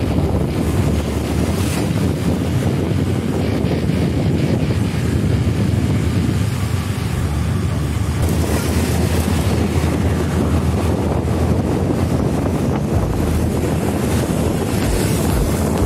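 Steady wind buffeting the microphone of a camera on a moving vehicle, over a constant low rumble.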